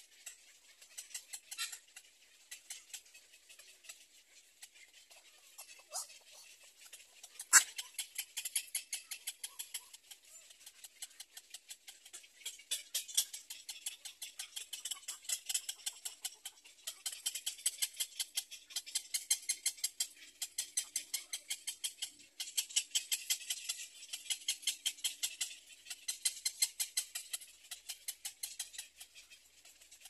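Rapid, high-pitched ticking chatter of small animal calls, several pulses a second in long runs that grow denser in the second half. One sharp click sounds about seven and a half seconds in.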